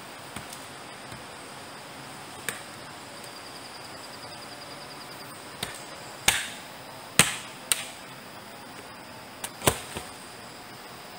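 Machete chopping through a sapling to cut a pole: about eight sharp, irregularly spaced strikes, the loudest just past the middle, over a steady forest hiss.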